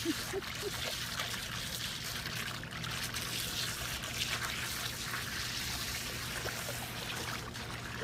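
Shallow pool water splashing and trickling steadily as a cat paws and wades in it.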